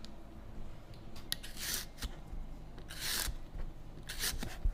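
A Y-peeler scraping the green rind off a winter melon in several short strokes, about a second apart.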